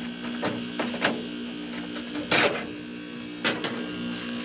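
Gibson 5000 BTU window air conditioner running with a steady motor hum, its fan on low and its compressor running but hardly cooling, which the owner puts down to low refrigerant. A few sharp clicks and one short, louder rustle about halfway through sound over it.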